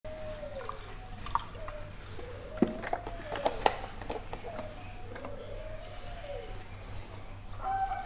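A rooster crowing several times in drawn-out rising-and-falling calls, with a few sharp knocks and taps from a milk carton and cup being handled, over a low steady hum.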